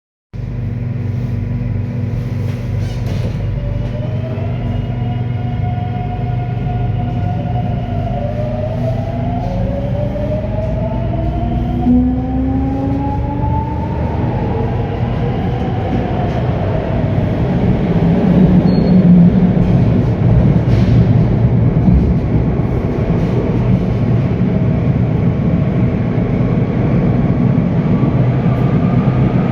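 Madrid Metro 9400-series Ansaldobreda dual-voltage electric train under 1500 V traction, accelerating: the traction motors and inverters whine in several tones that climb in steps over the first half, one tone falling away after the middle and another rising near the end. A low rail and wheel rumble runs underneath and grows louder as speed builds.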